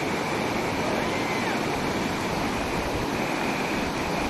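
Steady rushing of whitewater rapids on an alpine river.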